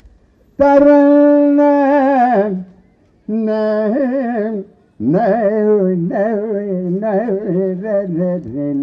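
A man singing unaccompanied in Carnatic style, with no words: a long held note that wavers and then slides down, a shorter phrase, then a longer phrase full of quick pitch turns that runs on past the end. He is imitating a Carnatic concert singer's opening phrases, sung through a PA microphone.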